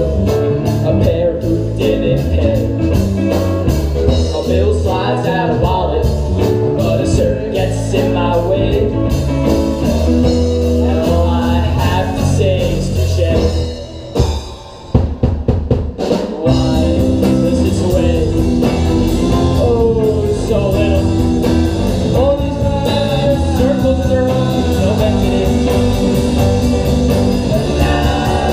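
Live rock band with electric guitars, bass and drums playing amplified through a club PA. About halfway through, the band drops out briefly and plays a few stop-hits before coming back in full.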